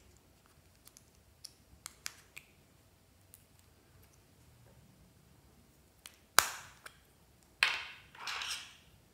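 Light ticks and scrapes of a metal pick against a small plastic toy block, then two much louder sharp clicks past the middle, the second followed by a brief rasping noise.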